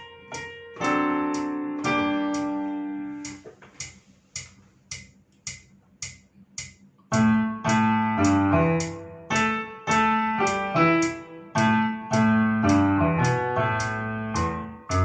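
Piano music over a steady ticking beat. It thins out to little more than the beat for a few seconds, then fuller, louder piano chords come back in about halfway through.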